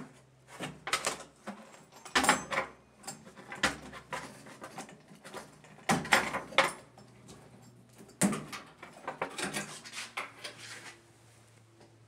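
Irregular plastic-and-metal clatter, clicks and knocks of a washing machine's control panel and circuit-board housing being worked loose from the frame and lifted off. It falls quiet near the end.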